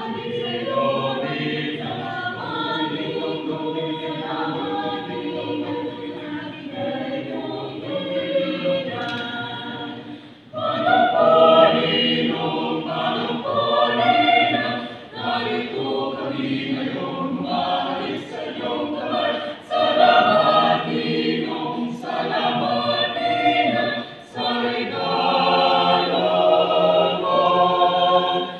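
Mixed choir of men's and women's voices singing a Christmas carol. The singing breaks off briefly about ten seconds in, then comes back louder.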